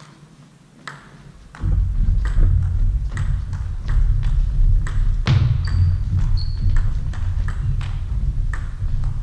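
Table tennis ball clicking off bats and table again and again during a round-the-table rally, one or two hits a second. About a second and a half in, a heavy low rumble of thuds sets in and stays louder than the hits, with two short high squeaks around the middle.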